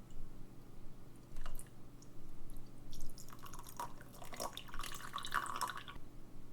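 Liquid dripping and splashing with small clicks as clock movement parts are cleaned, busiest in the second half, over a low steady hum.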